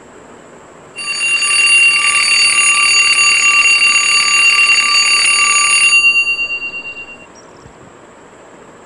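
Twin-bell alarm clock ringing for about five seconds, starting about a second in, then stopping with its bell tones dying away: the wake-up alarm going off at six o'clock.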